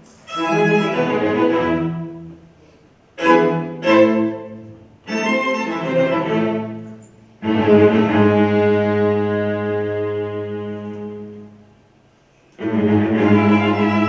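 String quartet of two violins, viola and cello playing classical music live: a few short bowed phrases with brief breaks, then a long held chord that fades away, with playing starting again near the end.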